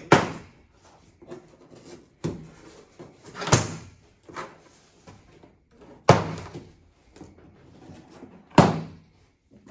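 A large cardboard parcel being handled and moved, giving about five loud thuds and bangs spread over several seconds, each a sharp knock with a short tail.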